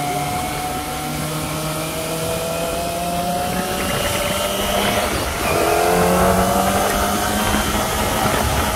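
Kawasaki Ninja ZX-25R's inline-four engine running on the move, its revs climbing slowly, dropping sharply about five seconds in as with a gear change, then climbing again.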